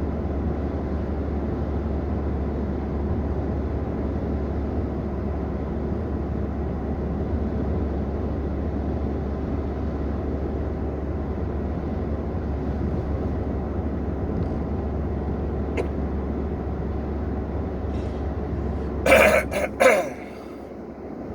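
Steady low rumble of a car interior on the move. Near the end comes a short, loud cluster of three or four sharp throat sounds from the person, and right after them the low rumble drops away.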